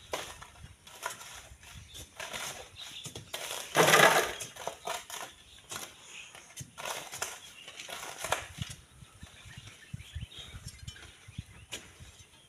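Sand and gravel being pried loose from a volcanic sand cliff with iron bars, in irregular scraping, sliding rushes. The loudest rush comes about four seconds in.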